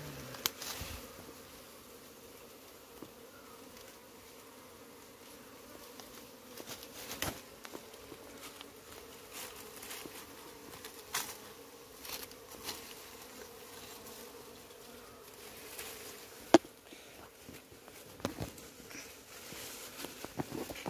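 Honeybees buzzing steadily around an opened nest, with scattered sharp clicks and knocks as comb is cut and handled; the loudest click comes about three-quarters of the way through.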